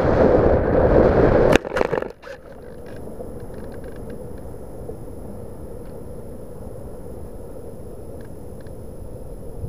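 Bixler 1.1 foam RC plane belly-landing in grass: a loud rushing scrape that stops suddenly about a second and a half in, with a few knocks as the plane comes to rest. After that there is only a low, steady wind noise on the onboard microphone, with a few faint ticks.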